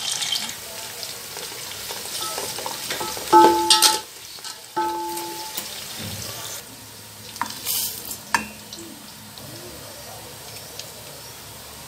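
Onions sizzling as they fry in hot oil in a cooking pot, stirred now and then, with two short squeaks about a second apart a few seconds in.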